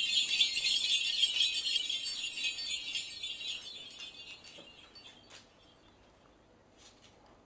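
Bright jingling of small bells that fades away about halfway through, leaving near quiet with a couple of faint clicks.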